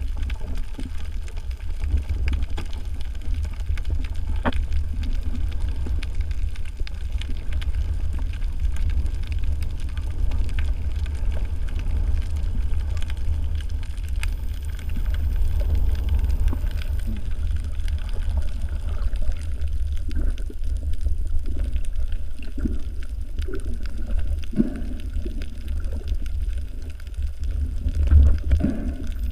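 Underwater ambience: a steady, muffled low rumble of moving water, with faint scattered clicks and crackles.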